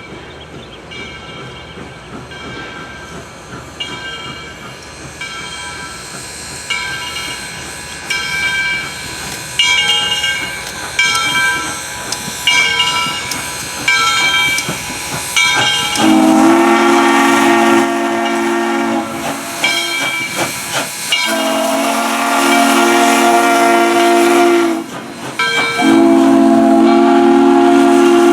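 Southern 630's steam locomotive bell ringing about once a second, growing louder as the engine approaches. Just over halfway through, its steam whistle sounds: two long blasts, then a third that is still going at the end.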